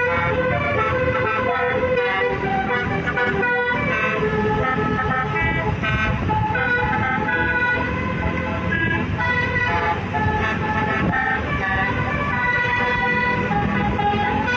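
Bus 'telolet' musical horns playing a tune of shifting multi-note chords, over a steady low rumble.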